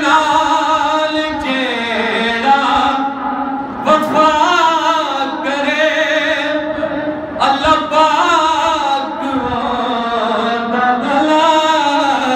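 A man chanting a naat, a devotional poem in praise of the Prophet, solo, in long, melismatic held phrases with brief pauses for breath.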